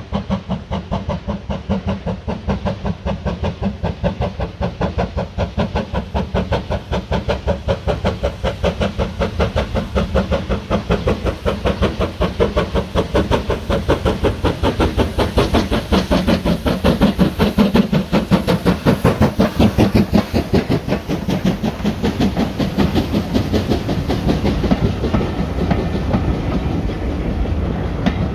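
USATC S160 2-8-0 steam locomotive working hard, its exhaust beating out a fast, even rhythm that grows louder to a peak about two-thirds of the way through, the beats blurring into a more continuous rumble near the end.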